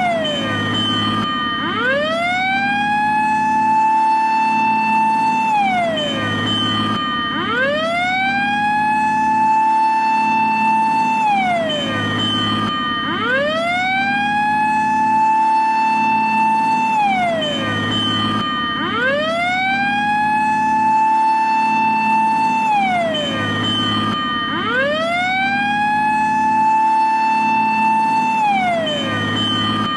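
Japanese fire engine siren wailing in repeated cycles: each one rises quickly to a high held pitch, holds for about three to four seconds, then slides down before starting again, about five cycles in all.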